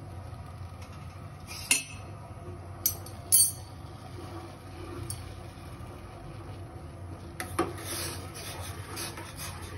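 A gas burner hums steadily under a steel saucepan of milk, with three sharp metallic clicks in the first half. From about three-quarters through, a steel spoon scrapes and rubs against the pan as the milk is stirred.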